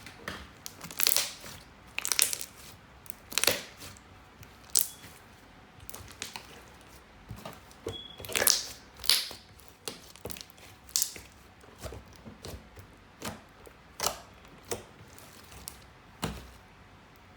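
Slime softened with lotion being squished and stretched by hand, giving irregular wet pops and crackles about once a second.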